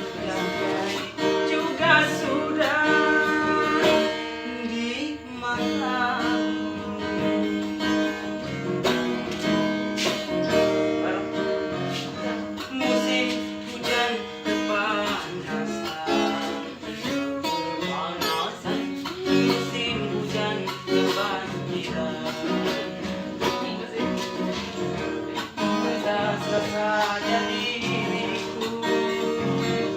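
Acoustic guitar strummed steadily, with a solo voice singing a melody over it in several phrases.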